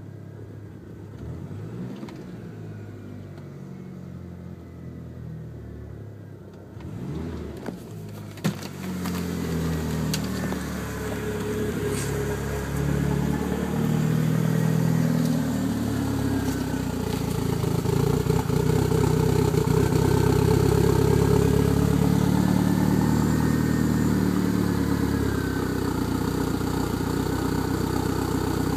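DSM car engine running unevenly with a misfire and sputter, the sign of a lean mixture. It is quieter at first; after a sharp click about eight seconds in it grows louder, with a wavering pitch, and stays loud.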